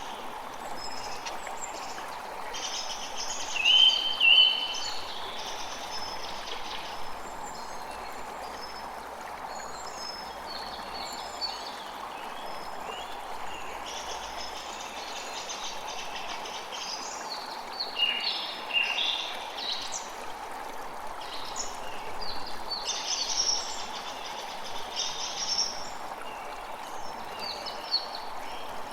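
Steady rush of flowing water with many birds chirping and singing over it. Two louder short whistled notes stand out about four seconds in.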